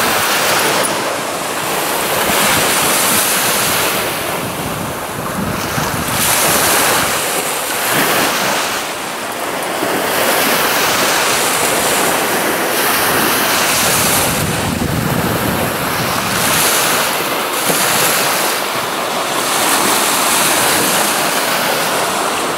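Small lake waves breaking and washing up a sandy beach, the surf rising and falling every few seconds, mixed with wind buffeting the microphone.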